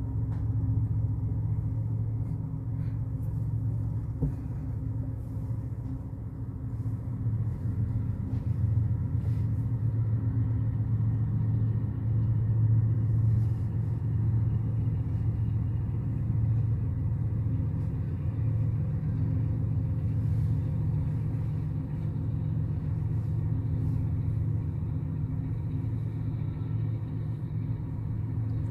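Double-stack container freight train rolling past, a steady low rumble.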